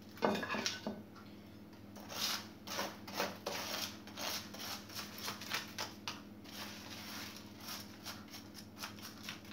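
Coarse baked salt crust being scraped and pushed off fish on a metal baking tray with a utensil: an irregular run of short crunchy scrapes and clicks, with a louder one just after the start. A steady low hum runs underneath.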